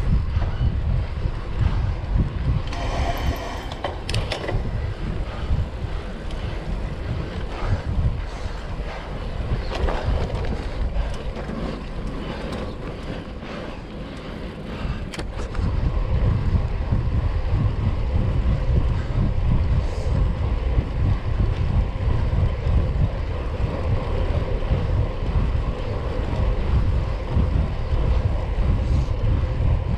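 Wind rumbling over the microphone of a camera on a moving road bike, mixed with tyre noise on the tarmac. It eases off for a few seconds around the middle and picks up again after.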